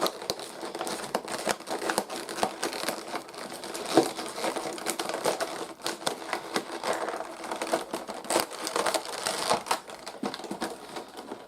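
Plastic-and-cardboard toy packaging being cut open and handled: irregular crinkling and rustling of plastic, with many scattered sharp clicks.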